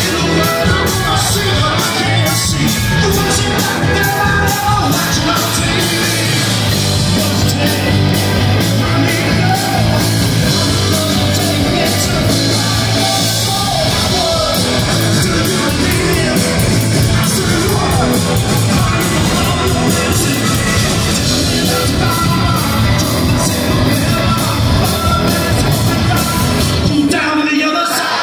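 Live rock band playing loud: electric guitars, bass guitar and drum kit, with a man singing into a microphone. The bass and drums drop out for a moment near the end.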